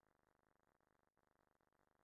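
Near silence: only a very faint hiss.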